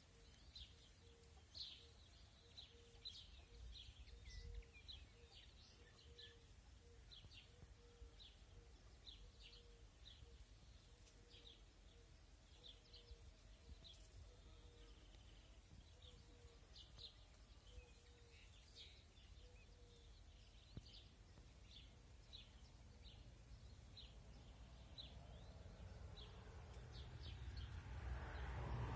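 Faint outdoor birdsong: small birds giving short high chirps again and again, with a lower repeated call in the background for much of the time, over a low rumble of wind. A rushing noise swells near the end.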